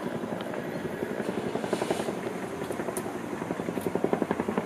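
Helicopter rotor chop, a fast, even pulsing that runs steadily.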